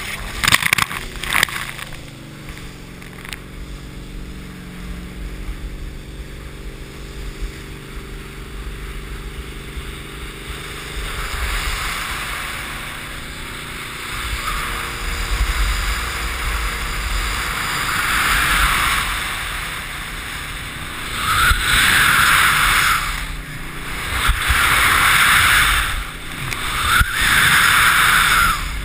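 A water skier is pulled up out of the water with a loud rush of spray. The Malibu tow boat's engine climbs in pitch as it accelerates. Then the slalom ski cuts hard across the wake, throwing loud hissing surges of spray every few seconds in the second half.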